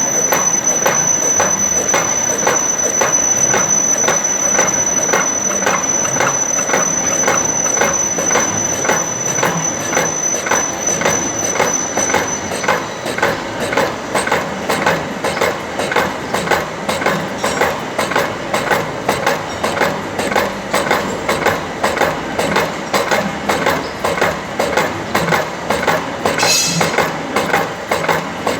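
Metal slotting machine cutting a keyway into a dynamo pulley: the ram strokes back and forth in an even, repeating rhythm, the tool scraping the metal on each stroke. A thin high whine runs alongside and stops about halfway through.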